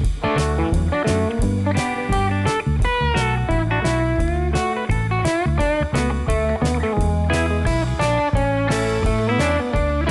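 Background music: a guitar melody with sliding, bending notes over a bass line and a steady beat.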